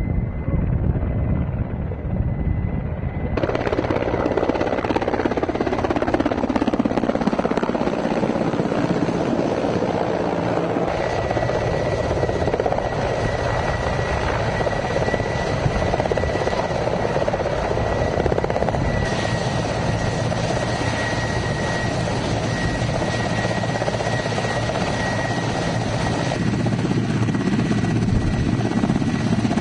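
Mi-8 helicopter landing close by: main rotor and twin turboshaft engines running loud and steady, with a high, even turbine whine over the rotor noise. The sound changes abruptly a few seconds in and twice more later.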